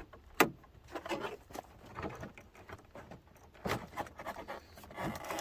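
Hard plastic clicks, knocks and scrapes from a 2011 GMC Sierra's interior door panel and handle being handled and turned, with one sharp click about half a second in.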